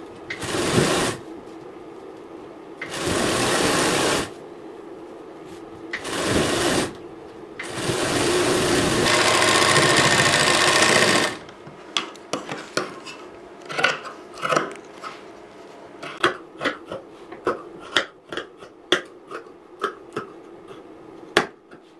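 Sewing machine stitching a blouse side seam in four runs that start and stop abruptly, the last and longest about four seconds. From about twelve seconds in, a string of short sharp clicks follows.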